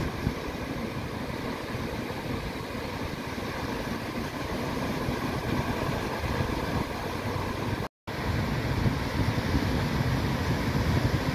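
Outdoor wind rumbling on the microphone over the wash of small waves breaking on the beach. The sound cuts out completely for a split second about eight seconds in.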